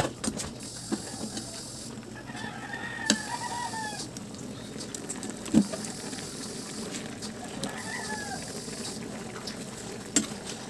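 A rooster crowing twice, about two seconds in and again near the eight-second mark, each a long call that rises and then falls away. Between them are a few sharp clinks of a metal ladle against the wok, over a steady hiss.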